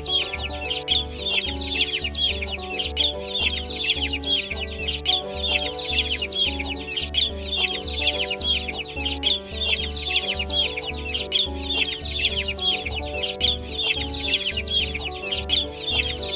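A flock of chicks peeping continuously, many shrill overlapping cheeps, over background music with a steady beat.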